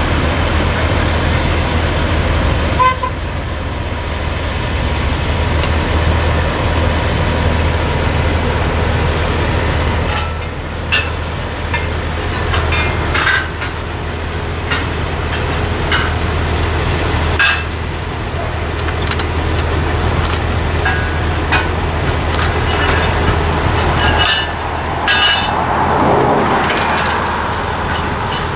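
Heavy diesel engine of a crawler crane running steadily at a low hum, with occasional sharp clanks from rigging hardware as workers hook up a load.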